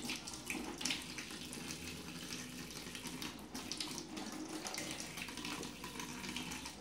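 Kitchen tap running steadily into a stainless steel sink while hot dog sausages are rinsed under the stream by hand, with small irregular splashes.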